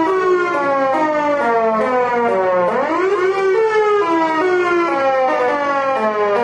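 Mini 3D-printed Thunderbolt 1003 siren sounding loudly. Its pitch falls slowly, climbs sharply about three seconds in, then slides down again, and the tone pulses as the rotating horn sweeps round.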